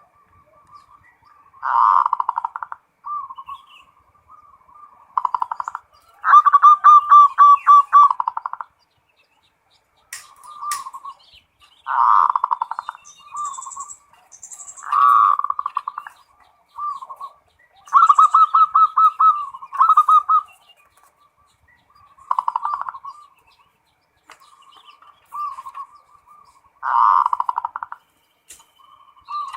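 Zebra dove (perkutut) cooing over and over in short phrases a second or a few seconds apart, many of them broken into a fast rolling trill. The longest and loudest trilled phrases come about a quarter of the way in and again about two-thirds of the way in.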